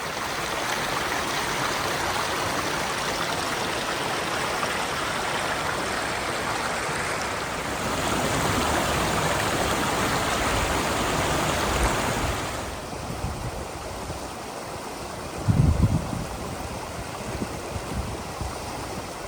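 Creek water rushing over rocks in small cascades: a steady rush that grows louder for a few seconds, then drops to a quieter level about two-thirds of the way through. A brief low thump on the microphone follows a few seconds later.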